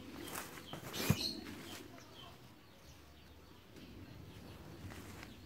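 Rustling and crackling of someone moving through undergrowth over dry leaf litter, with one sharp snap about a second in. Faint short bird chirps follow over a quiet background.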